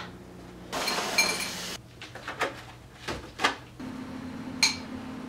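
Household handling sounds. A light switch clicks at the start, a rush of noise comes about a second in, and a few short knocks follow. Near the end, over a steady low hum, a spoon clinks once against a cereal bowl.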